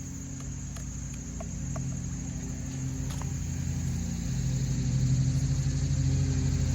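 Old RedMax edger's two-stroke engine running at a steady high idle, growing louder about four seconds in. It idles but won't take throttle, a carburetor fault that the owner suspects may be a cracked diaphragm.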